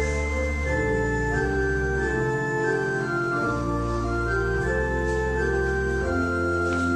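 Organ playing a hymn in slow, sustained chords over a deep bass line, the chords changing every second or so.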